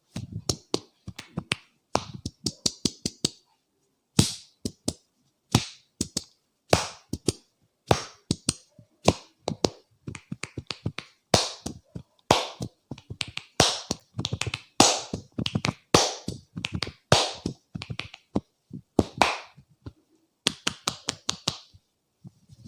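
Head massage percussion: the barber's hands slapping, tapping and popping on the head in quick runs of sharp strikes, with single harder slaps in between.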